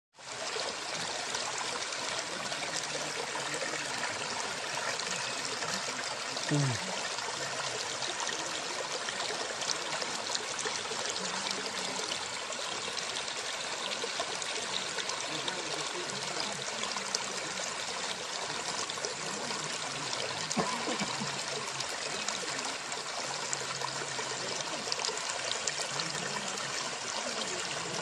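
Small waterfall: a thin stream of water falling down a rock face and running over a rock slab, a steady trickle and splash.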